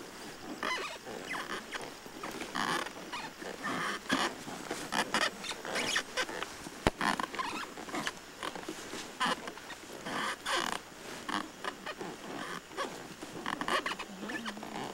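Irregular rustling and scraping of an elephant-back ride, as the wooden howdah and the riders shift with each step the elephant takes. A single sharp knock comes about seven seconds in.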